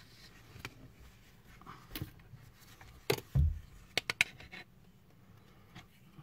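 A plastic A-pillar trim and tweeter pod handled while the tweeter wires are fed through it: scattered clicks and knocks, with a dull thump about three and a half seconds in.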